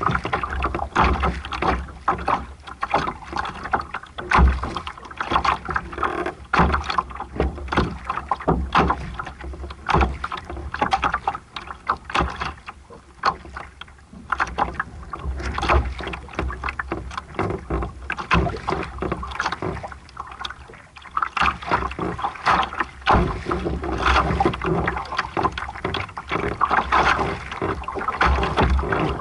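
Water splashing and rushing against the hull of a small sailboat under way, in uneven surges, with a steady low rumble of wind on the microphone. It eases briefly a couple of times near the middle.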